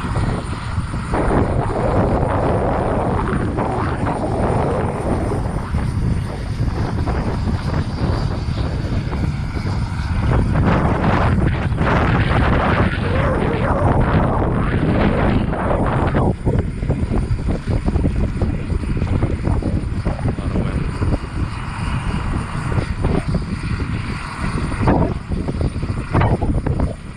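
Small turbine engine of a radio-controlled model jet running: a loud rushing noise under a steady high whine. It grows louder for several seconds in the middle, then drops back.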